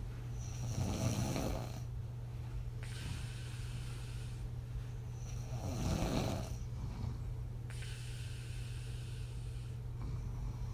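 A woman asleep on her back snoring, her breath blowing out through loose lips. Two loud snoring breaths about five seconds apart, near the start and past the middle, over a steady low hum.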